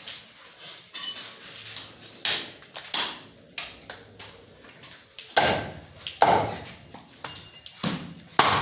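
Butcher's knife clinking and scraping on mutton and a cutting block, then a few heavy chopping blows in the second half as the meat is cut through.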